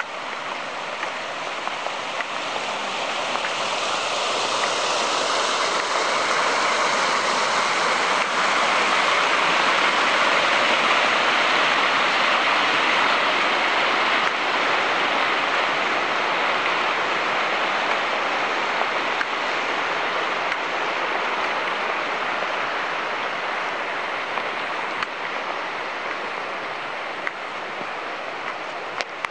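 Kananaskis River rushing over rocks at a small rapid: a steady rushing of water that swells in the middle and eases toward the end.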